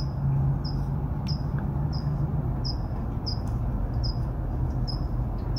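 A cricket chirping at an even pace, about three short high chirps every two seconds, over a low steady hum.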